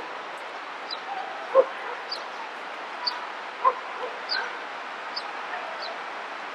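A dog barking: several short, separate barks over steady outdoor background noise, with faint high chirps.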